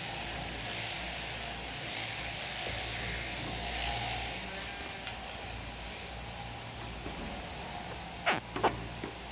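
Electric sheep-shearing machine running steadily, then two sharp knocks close together near the end.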